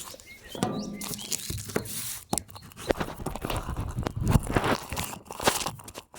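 Irregular rustling and crunching with scattered sharp knocks and clicks: handling noise of things being moved about close to the microphone.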